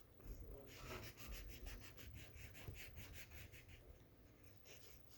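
Faint, rapid back-and-forth strokes of a colouring tool on paper, about six scratches a second, as a drawing is being coloured in.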